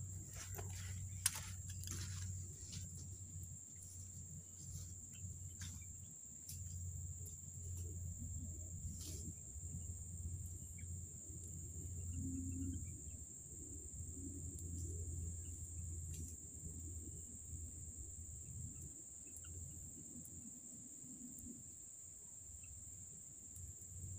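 Steady high-pitched drone of forest insects under a low rumble on the microphone, with scattered sharp crackles and snaps, most of them in the first few seconds, like twigs and dry leaves underfoot.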